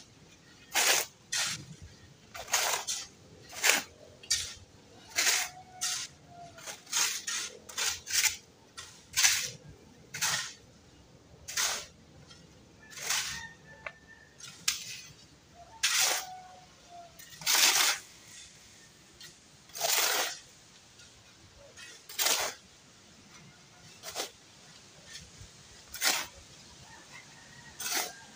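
Shovel scraping through a hand-mixed concrete batch in short strokes, irregularly about once a second.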